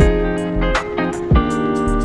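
Background music: a guitar-led track with bass and a steady drum beat.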